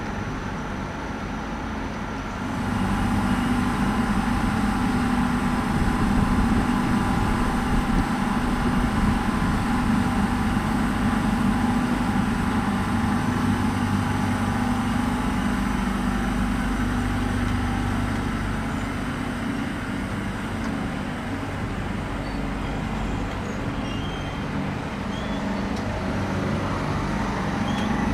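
ÖBB Railjet express train moving slowly alongside the platform, its electric drive giving a steady hum with a few held whining tones. It gets louder about two and a half seconds in.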